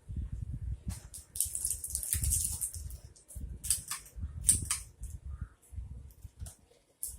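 Lego pieces being handled on a table: irregular bursts of plastic rustling and clicking over low handling thumps.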